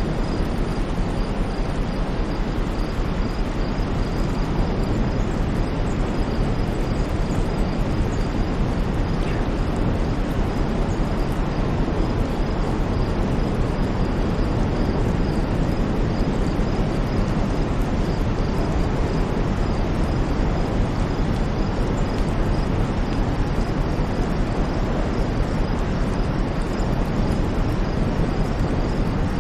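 Steady white noise: an even, unchanging hiss weighted toward the low end, with no swells. A faint high chirp repeats evenly underneath.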